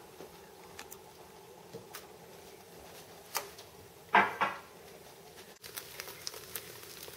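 Light clicks and taps of a cooking utensil against a frying pan as an egg omelette cooks, with one louder scrape about four seconds in and a run of small ticks near the end.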